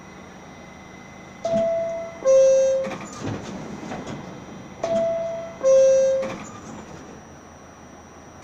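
R68A subway car's door-closing chime: a two-note descending 'ding-dong', sounded twice about three and a half seconds apart, over the steady hum of the stopped train.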